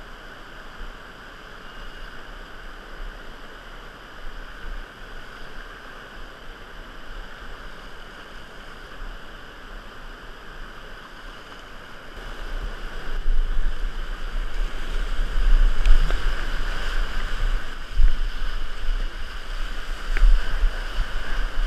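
Whitewater rapid on the Sol Duc River rushing steadily. It grows much louder about two-thirds of the way through as the kayak paddles into the rapid, with low buffeting and splashes of water on the microphone.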